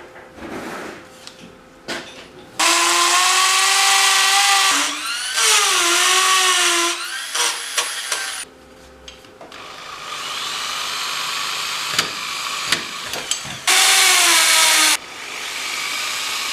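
Power drill running in several bursts of a few seconds each, its motor whine dipping in pitch as it bites and then recovering.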